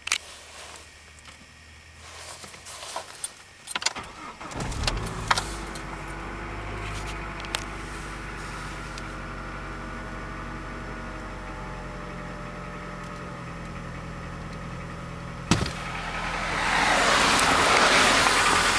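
Clicks and a jangle of keys, then a Chrysler 2.4-litre four-cylinder engine starting about four seconds in and idling steadily; it is the engine whose owner reports a knock. Near the end a louder rushing noise rises over the idle.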